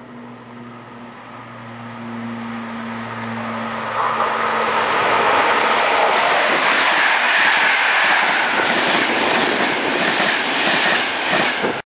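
Trenitalia electric locomotive and Intercity coaches approaching and passing at speed. A rush of noise builds and becomes loud about four seconds in, then the coach wheels clatter rapidly over the rail joints as the coaches go by. The sound cuts off abruptly near the end.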